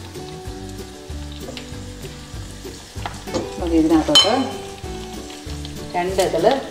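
Masala of coriander and Kashmiri chilli powder frying in oil in a pan while being stirred, sizzling throughout, louder for a moment about four seconds in and again near the end.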